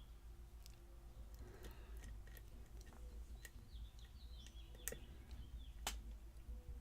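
Faint, irregular clicks of a lock pick and tension wrench working the pins inside a custom challenge lock during picking, about five sharp clicks, the loudest near the end.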